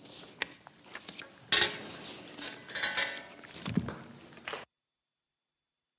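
Scattered clinks, knocks and rustling handling noise, cutting off abruptly to dead silence about four and a half seconds in.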